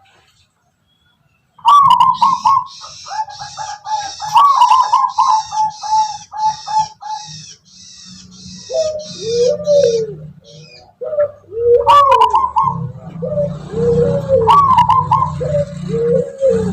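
Zebra dove (perkutut) cooing in repeated phrases: quick runs of high coo notes, then from about halfway a series of lower, arched coos. Fast, even high chirping runs alongside during the first half. The calls start after a brief silence.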